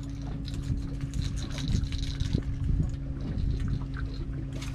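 Water lapping and splashing against a boat's hull, with scattered small knocks and a steady low hum underneath.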